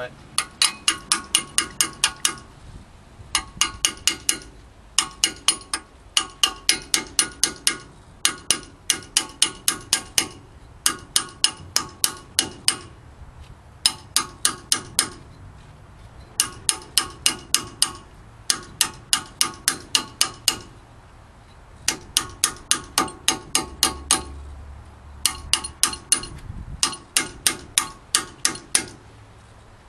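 A steel hand tool used in place of a mallet, tapping the metal grease cap on a front wheel hub to knock it loose. The taps ring and come quickly, about five a second, in runs of five to ten with short pauses between.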